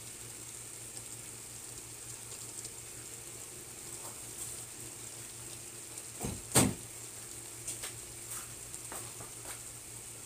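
A pot of rice and chicken cooking on the stove, giving a steady sizzling hiss. A sharp knock sounds about six and a half seconds in, with a few fainter clicks after it.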